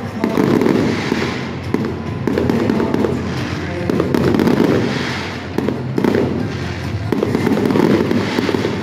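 Aerial fireworks show: shells bursting in quick succession, a dense run of overlapping bangs with no let-up.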